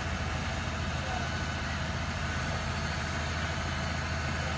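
An engine idling steadily, a low even hum with no change in speed.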